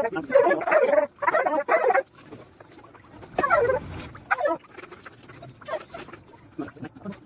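An animal calling in short pitched bursts, several in the first two seconds and again about halfway through.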